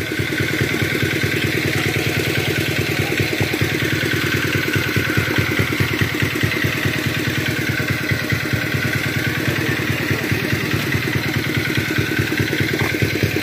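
Small engine running steadily at an even, fast beat, with a slowly wavering whine above it: the pump engine used to drain the pond.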